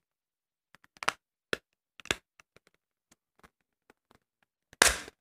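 Sparse small clicks and taps of a Blackbear i7 Trio Plus feature phone's plastic back cover being handled and pried open, with one louder knock near the end.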